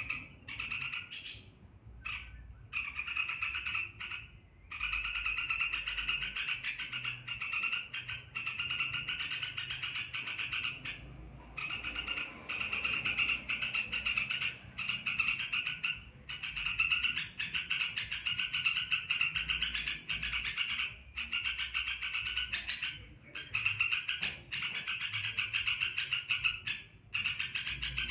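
Olive-winged bulbul singing a long, continuous song of rapid notes in runs of several seconds, broken only by brief pauses.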